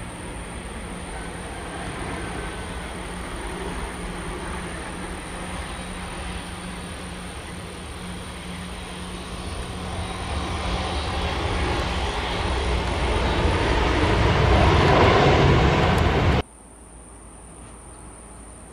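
Boeing 737-900ER jet engines on landing: a steady roar with a low hum that swells to its loudest as the jet rolls out along the runway after touchdown. About sixteen seconds in it cuts off abruptly, leaving a much quieter steady background noise.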